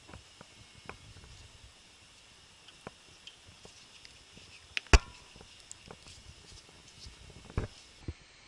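Scattered small clicks and knocks as the socket end of a new gas-strut lift support is worked onto the liftgate's ball-joint stud, with one sharp click about five seconds in and two more near the end.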